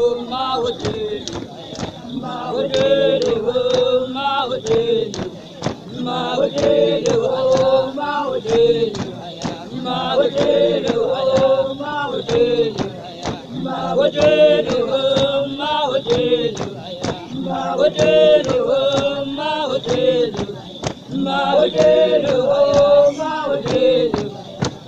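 Basotho bale, female initiates, singing a traditional song together as a group, phrase after phrase, over a sharp steady beat about twice a second.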